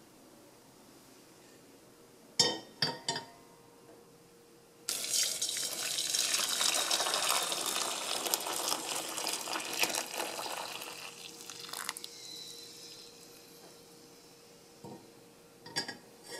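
A few sharp clinks, then about five seconds in, water poured in a steady stream from a pot into a stainless steel bowl, running for about six seconds before tapering off. A couple of light taps near the end.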